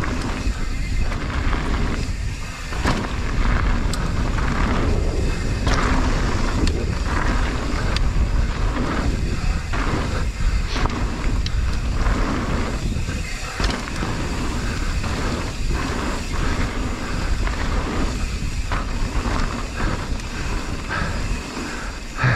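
Wind buffeting the microphone of a moving mountain bike, with tyres rolling over a dirt trail and frequent short knocks and rattles from the bike over bumps.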